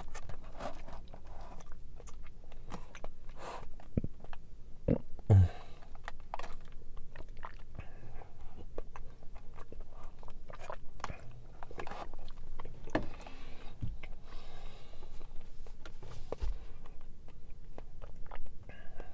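Sipping boba milk tea through a straw and chewing the tapioca pearls: soft sucks with many small wet mouth clicks and smacks scattered throughout.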